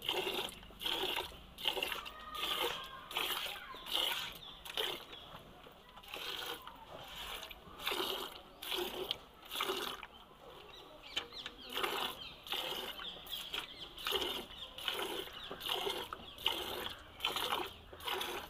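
Cow being milked by hand, milk squirting in jets into a steel bucket, about two squirts a second.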